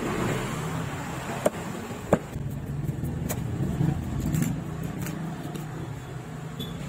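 Steady low rumble of motor vehicle engines running, with a few sharp knocks about one and a half and two seconds in.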